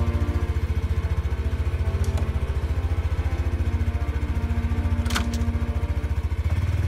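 Honda Super Cub 110's single-cylinder four-stroke engine idling with a steady rapid pulse. There is one sharp click about five seconds in, and the engine sound changes near the end.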